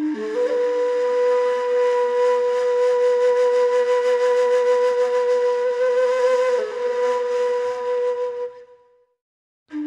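Flute-like wind instrument playing a slow solo phrase: a short lower note slides up into one long held note, which dips slightly partway through and then fades away.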